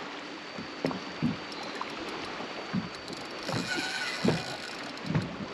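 Water lapping and slapping against the hull of a small fishing boat, a steady wash of water noise broken by several short low thumps. A brief high whine sounds a little past halfway.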